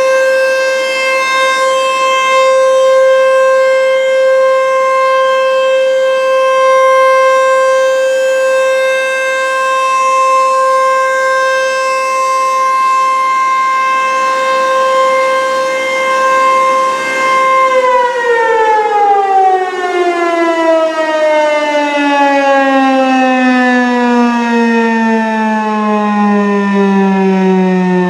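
ASC T-135 AC/DC outdoor warning siren sounding a steady tone, then winding down about 18 seconds in, its pitch falling steadily as the rotor slows.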